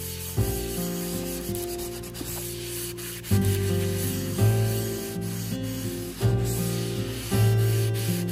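Wooden cutlery being rubbed by hand, a soft scratchy rubbing on wood, under background music whose held notes change every one to two seconds.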